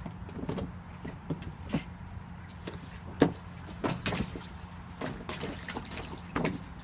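Water sloshing and slapping in a small inflatable paddling pool as a pug noses at the floating toys and presses down on the soft rim, in short irregular splashes, the loudest about three seconds in. A steady low hum runs underneath.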